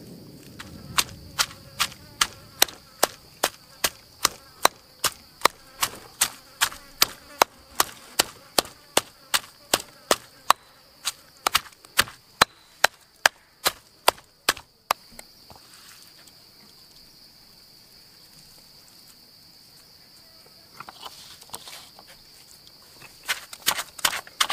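Pestle pounding shredded meat and chili paste in a stone mortar, sharp knocks about two to three a second, stopping about 15 seconds in and starting again near the end. Insects buzz steadily in the background.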